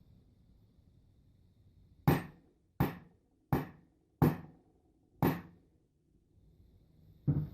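Hammer blows staking a replacement ejector spring, a cut-down firing-pin spring, into a Marlin 1894 rifle: five sharp strikes about two-thirds of a second apart, then one more near the end.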